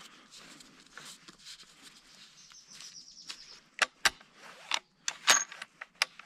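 A carbon-barrelled hunting rifle being handled: soft rustling, then a string of sharp clicks and knocks in the second half. A faint thin high whistle sounds for about a second near the middle.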